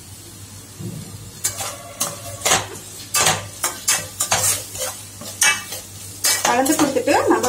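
Spatula stirring and scraping onion, capsicum and tomato masala around a stainless steel frying pan, mixing in freshly added ketchup and spices, over a faint frying sizzle. The strokes start about a second and a half in, come about twice a second, and grow louder and denser near the end.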